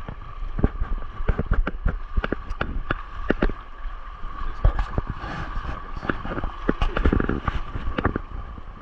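Feet wading through shallow river water, with irregular sharp splashes a few times a second over a low rumble.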